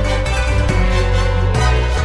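Background music with a heavy bass line and sustained pitched tones.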